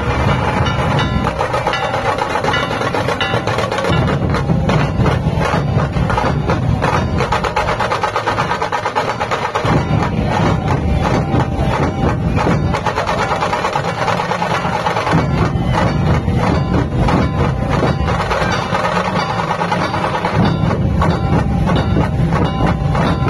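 A large ensemble of Maharashtrian-style dhol drums beaten together with sticks in a fast, driving rhythm. The deep drum tone drops back and returns in sections every few seconds.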